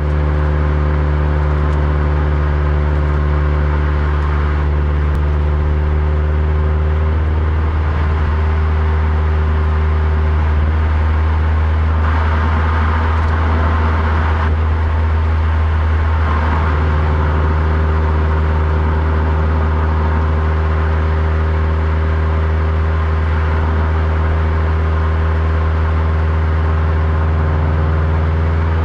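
Subaru WRX STI's turbocharged 2.0-litre boxer four cruising steadily, heard through a microphone mounted outside the car, with a continuous low engine drone and tyre and road noise.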